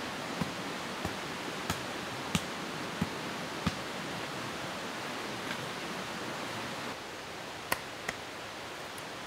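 Sharp taps of a hand tool striking gravelly ground, about one every two-thirds of a second for the first few seconds, over a steady rushing background noise. About seven seconds in the background drops slightly, and two more taps follow close together.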